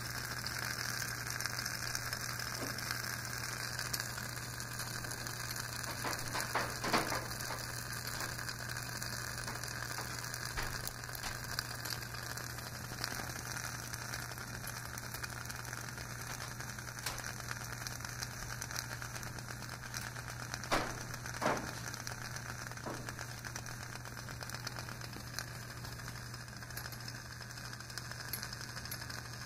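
Beer-can camping stove burning through its ring of jets with a steady hiss over a low hum. Scattered faint clicks and crackles sound throughout, with louder clusters about seven seconds in and again around twenty-one seconds in.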